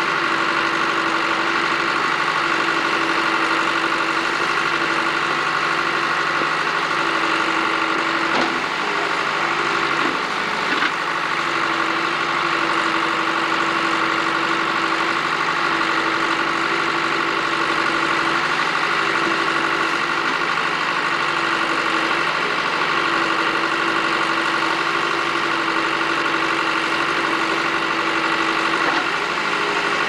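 Backhoe loader engine running steadily while the backhoe digs, with a couple of brief knocks about eight and eleven seconds in.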